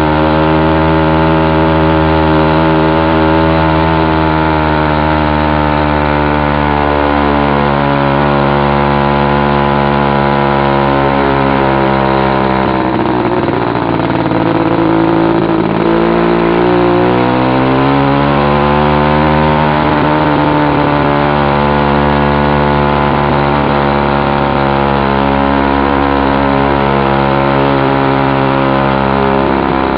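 Chinese "China Girl" two-stroke bicycle engine kit running under load up a steep climb, very loud with its muffler cap removed. Its pitch dips and wavers about halfway through as the bike slows through a bend, then steadies again.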